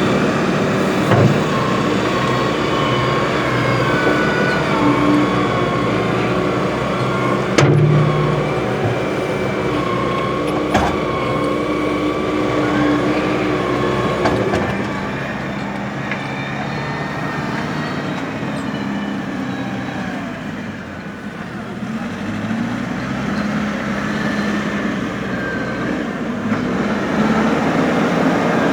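Hydrema 906D backhoe loaders running as they dig and move dirt: a steady diesel engine note with a wavering whine over it, and a few sharp knocks, the loudest about eight seconds in. The sound eases off in the middle, then builds again.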